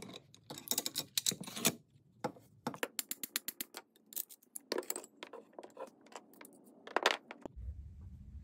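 An irregular run of light metallic clicks and clinks as a Galil rifle's bolt and bolt carrier are worked in the steel receiver and handled, with a fair number of clicks packed closely together.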